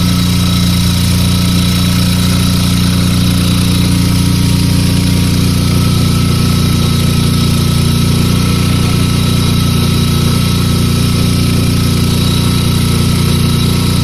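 Gasoline inverter generator engine running steadily at a constant speed, with a thin high whine over the engine note.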